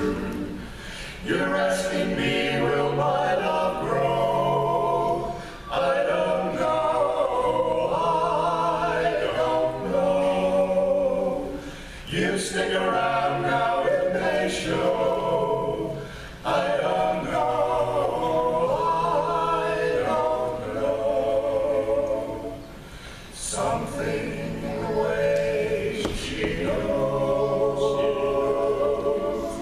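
Male vocal quartet singing a cappella in harmony, in long sustained phrases with short breaks between them.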